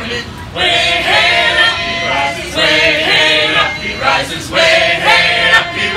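A caroling troupe singing a carol together, in sung phrases of about a second each with short breaks between them.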